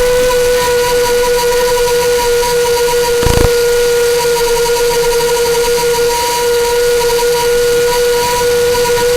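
An FPV racing quadcopter's brushless motors and propellers whining at a steady pitch over a hiss, with one short low thump about three seconds in.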